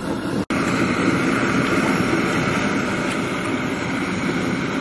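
Steady hiss and roar of a Primus camp stove's gas burner running under a steaming stovetop percolator, cut off briefly about half a second in.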